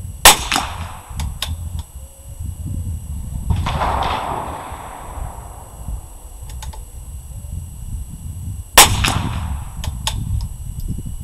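.22 rimfire rifle fired twice, about eight and a half seconds apart: two sharp cracks, each with a short ringing tail. A brief rushing noise fades out between the shots.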